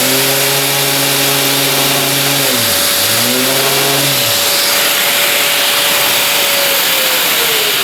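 Handheld power sander running on a wooden workpiece, its motor pitch sagging and recovering twice under load, then switched off and spinning down near the end, over a steady hiss of the vacuum pump.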